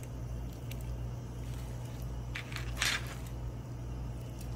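Raw chicken chunks dropped into a pot of broth, with a few soft wet squishes between about two and a half and three seconds in, over a steady low hum.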